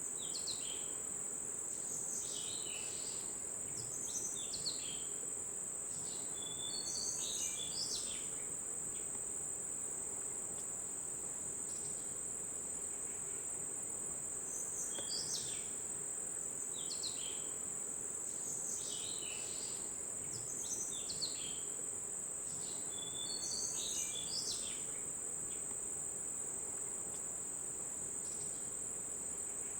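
Jungle ambience: a steady, high-pitched insect drone, with short clusters of quick bird calls every few seconds.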